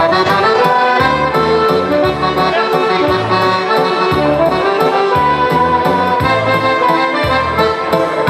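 Accordion playing a lively dance tune over a backing track with a steady drum beat and bass line.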